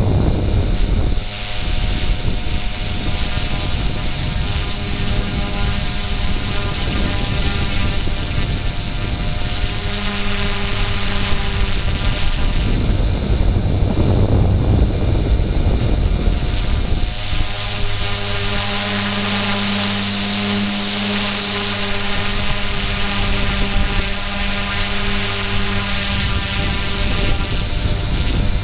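E-flite Blade mCPX micro RC helicopter in flight, heard from its onboard camera: a steady high-pitched whine from its HP05 brushless main motor along with rotor noise. The lower tones shift up and down as the throttle changes.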